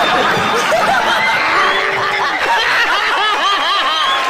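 A crowd laughing heartily together, with hands clapping beneath the laughter.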